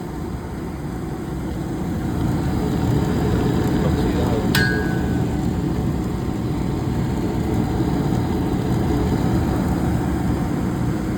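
Furnace fan running with a heavy, rough vibration, which the technician takes as a sign that the fan needs checking and maintenance. The sound grows louder over the first few seconds, and a sharp metallic click with a brief ring comes about halfway through.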